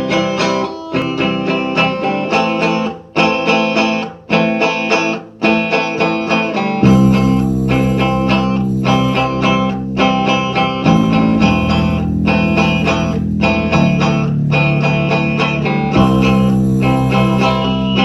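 Instrumental music with picked guitar notes in short phrases; about seven seconds in, a low sustained bass comes in under them and the sound fills out.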